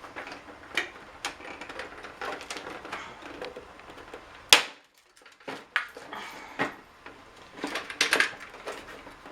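Plastic housing of a Keurig coffee maker being handled and pried at: scattered clicks and knocks, with one loud sharp snap about four and a half seconds in and a quick run of clicks near the end.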